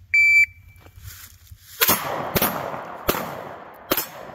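A shot timer's start beep, a single short high tone, then four gunshots fired at steel targets, the first nearly two seconds later and the last near the end, each trailing off in echo.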